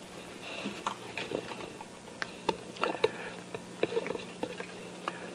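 Irregular small clicks and taps as a hand-held model of thin rods is handled and bent, over a steady low hum.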